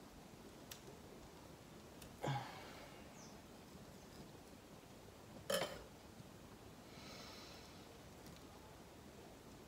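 Quiet handling sounds from a knife and hands working garlic cloves into slits in a raw beef roast on a cutting board: two brief knocks, about two seconds in and the sharper one halfway through, over a low steady background.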